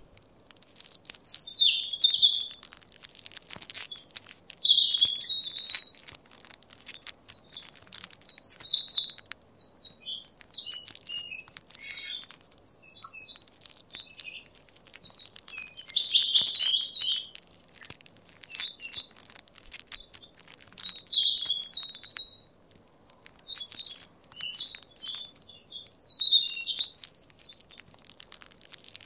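A songbird singing short high phrases of quick varied notes, one every few seconds, over faint scattered clicks.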